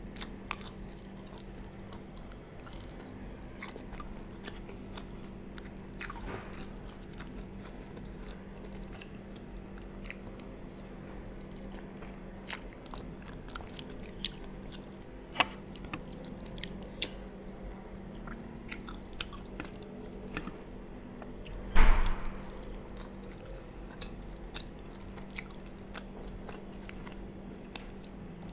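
Close-up mouth sounds of biting and chewing breaded dory fish and spaghetti, with many small wet clicks over a steady low hum. One much louder knock or clatter about three quarters of the way through.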